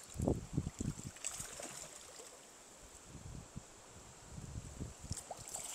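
Quiet river water with a few short, low splashes and knocks in the first second and a softer run of them about three to five seconds in, as a hooked trout is worked toward a landing net in the water.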